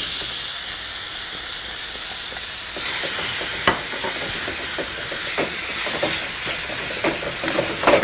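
Chopped tomatoes sizzling in hot ghee in a pan with fried ginger and asafoetida; the sizzling grows louder about three seconds in. A spoon stirring them knocks lightly against the pan several times.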